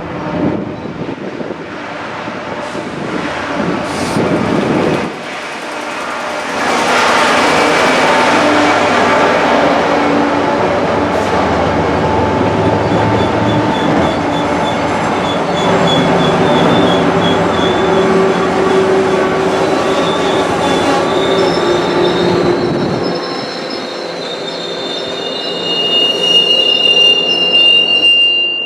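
MBTA commuter rail train running past on the tracks. Its noise builds about five seconds in and stays loud for some fifteen seconds before easing. Near the end the wheels squeal in a high, thin tone.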